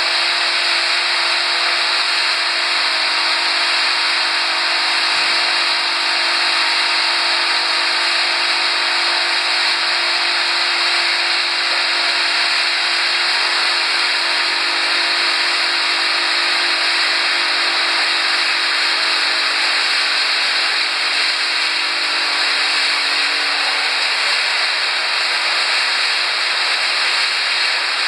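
Pet food extrusion and processing line machinery running: a loud, steady, even hiss of motors and fans with a faint low hum underneath.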